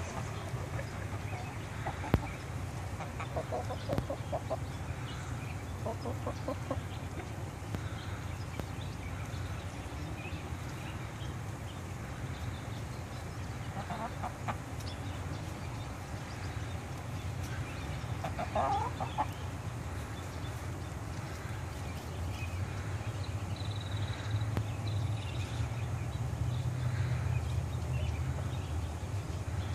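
Chickens clucking softly in a few short bouts, over a steady low rumble that grows louder in the last third. One sharp click about two seconds in.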